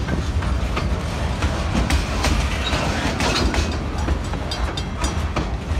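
Freight train of loaded centerbeam lumber flatcars rolling past, steel wheels clicking irregularly over the rail joints above a steady low rumble.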